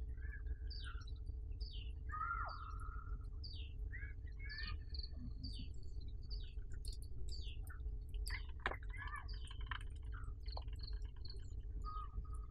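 Several birds chirping and singing, with many short downward-sweeping notes and a few held whistles, over a steady low rumble. A single sharp click comes about two-thirds of the way through.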